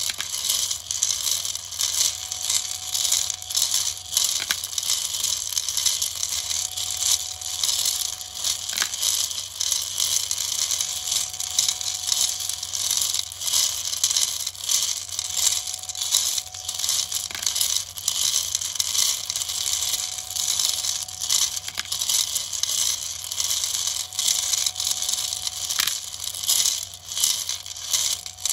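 Metal M3 hex nuts rattling and clattering continuously as they tumble inside a rotating 3D-printed plastic hopper drum, with a faint steady whine from the NEMA 17 stepper motor that turns it.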